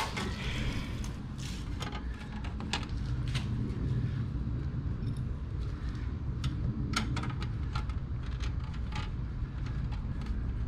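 Scattered light clicks and taps of an Allen wrench and plate-holder hardware being worked by hand, over a steady low rumble.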